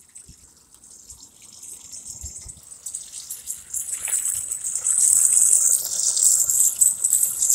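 Water gushing from a siphon-fed jet and spraying onto a small water turbine wheel. It starts as a faint trickle, then from about three seconds in grows into a loud, steady hiss of spray.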